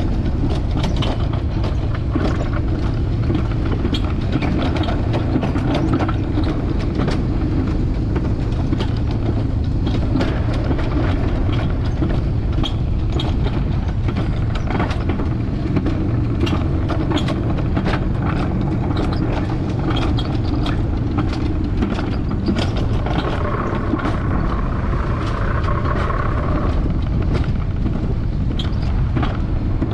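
Alpine coaster sled rolling fast down its tubular steel rails: a steady rumble from the wheels, with frequent sharp clicks and knocks as they cross rail joints and supports. A higher whine joins in for a few seconds about three-quarters of the way through.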